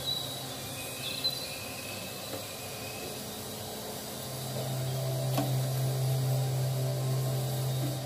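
Background music with sustained notes and a low held tone that drops out for a few seconds and comes back, with a couple of faint clicks over it.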